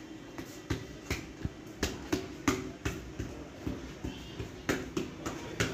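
A run of sharp, irregular knocks, about two to three a second, over a steady low hum, starting a little under a second in.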